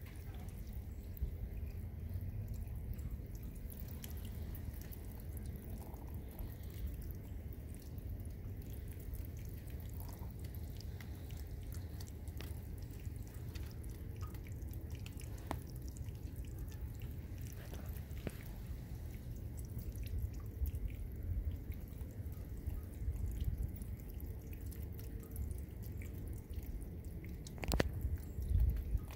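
Meltwater dripping from an ice-covered metal cup rain chain as it thaws: scattered single drips, one louder near the end, over a low steady rumble.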